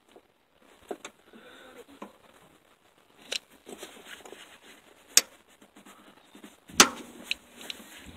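Scattered metallic clicks and clinks of a socket, universal joint and ratchet being worked onto a bolt in a tight space, with a sharper knock about five seconds in and a louder one near seven seconds.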